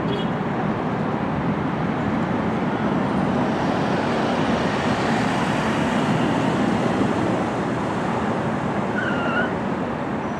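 Airbus A320-200's twin jet engines at takeoff thrust as the airliner climbs away, a steady deep rumble.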